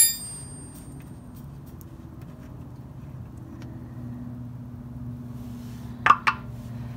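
A metal tool clinks on the fill plug of a VW Type 2 bus's rear reduction gearbox. A steady low hum runs under the handling, and two sharp knocks come about six seconds in.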